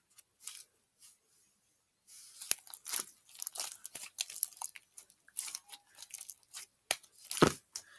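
Clear blue slime being squeezed and kneaded in the hands, making sticky crackling and popping clicks: a few faint ones at first, then a dense run from about two seconds in.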